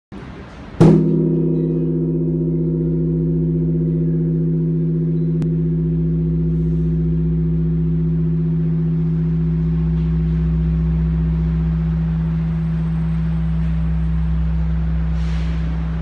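The great bronze Bosingak bell is struck once by a suspended wooden log about a second in. It then rings on with a deep, steady hum of low tones that hardly fades.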